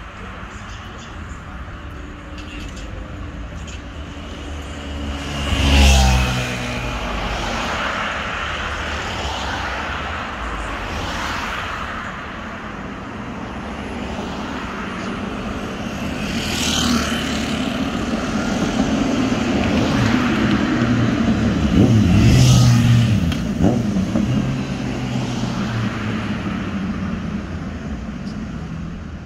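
Road traffic: cars passing one after another on a multi-lane road over a steady traffic noise, each swelling and fading as it goes by. About four close passes come a few seconds apart, the loudest about six seconds in.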